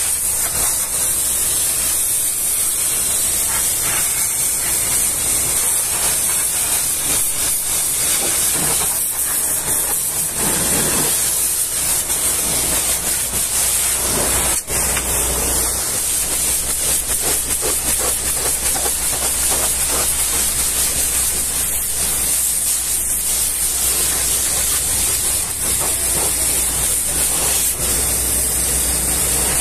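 Pressure washer wand blasting water against caked mud on a truck's wheel arch, chassis and wheel rim: a steady loud hiss with water and mud splattering, over a low hum. The spray breaks off for a moment about halfway through.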